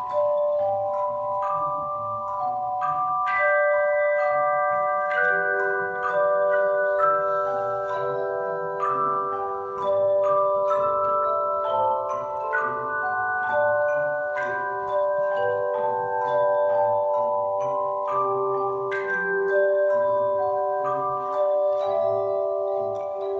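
Handbell choir playing a tune: bells struck one after another, each note ringing on and overlapping the next.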